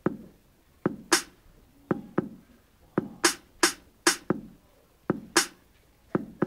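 Hip-hop drum beat with no vocals: deep kick-drum hits about once a second, with sharp snare or clap hits between them, starting abruptly after a moment of silence.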